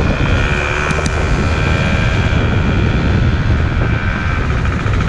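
Moped riding along a street: wind buffeting the microphone in a heavy rumble over the small engine's steady running, with a steady high whine throughout.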